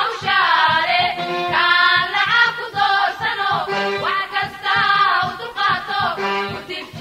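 Background music: a singing voice over a steady beat.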